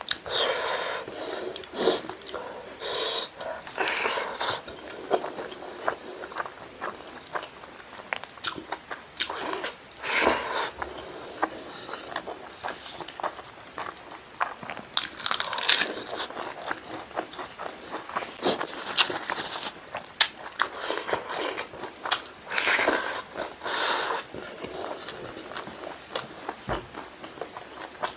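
A person eating by hand: chewing and biting through fried chicken, rice and a lettuce leaf, with many short wet clicks and a few longer crunchy bursts.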